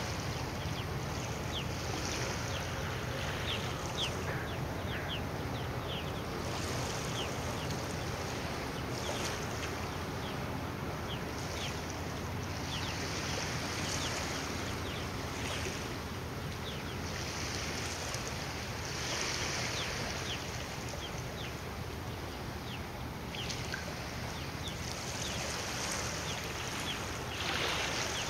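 Water washing and lapping in small waves, with many little splashing ticks, over a steady low rumble; gusts of wind hit the microphone now and then.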